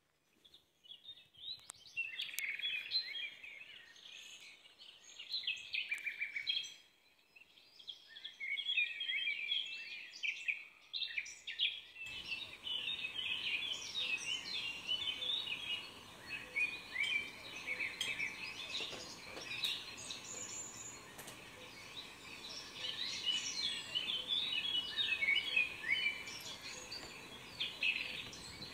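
Small birds chirping and singing, many quick calls overlapping, over a faint steady background hiss that becomes louder about twelve seconds in.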